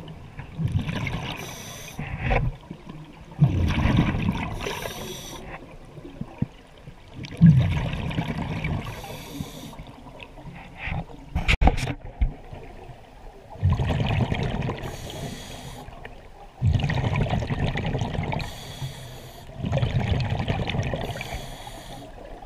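Underwater breathing through a scuba regulator: long hissing breaths alternating with bursts of exhaled bubbles gurgling, in a cycle repeating every few seconds, with one sharp click near the middle.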